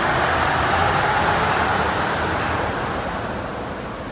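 Elevated transit train pulling out of the station past the platform screen doors: a rushing hiss that is loudest at first and then fades as the train moves away.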